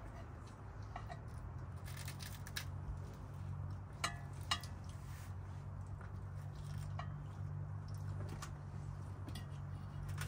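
Forks clinking against a frying pan and plates, a handful of light separate clinks over a steady low hum.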